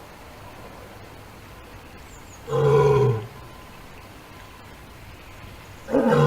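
An animal calling: two loud, pitched calls of under a second each, one about two and a half seconds in and one near the end, each sliding slightly down in pitch.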